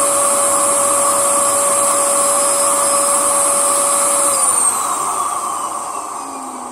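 Vacuum cleaner motor running with a steady high whine, then switched off a little over four seconds in, its pitch falling as the motor spins down.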